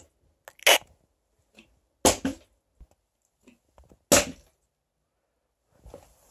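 Plastic water bottle being flipped and landing on a hard floor: three short thuds, roughly two seconds apart.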